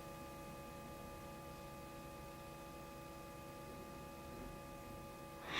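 Quiet room tone with a faint, steady electrical hum made of several unchanging high tones.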